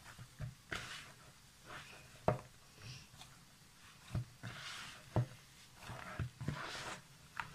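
Hand kneading and squeezing a stiff rice-flour dough in a plastic bowl: soft squishing and rubbing with irregular light knocks of hand and dough against the bowl.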